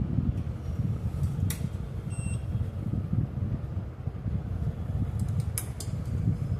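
Steady low rumble of a fan's air on the microphone, with a few light clicks and one short high beep about two seconds in.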